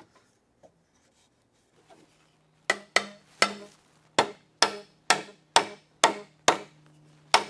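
Mallet tapping a curved leg down onto a rail's tenon, driving the housed mortise and tenon joint together for a test fit. About eleven sharp knocks, roughly two a second, start a few seconds in.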